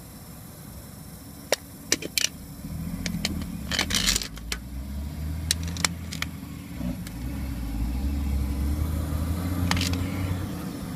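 A few sharp clicks and rattles, then the 2012 Mini Countryman S starts up with a steady low hum about three seconds in, and the hum carries on to the end.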